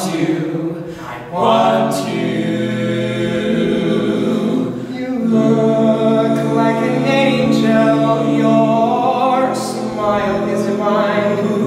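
Four male voices singing a cappella in close harmony, holding long sustained chords with a chord change about five seconds in.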